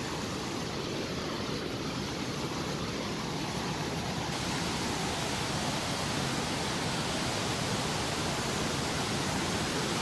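Steady rushing of water from a large cascading waterfall, growing slowly louder.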